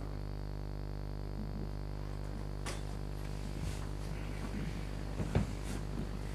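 Steady low electrical hum from the chamber's microphone system, with a few faint knocks and rustles as someone settles into a chair; the loudest knock comes about five and a half seconds in.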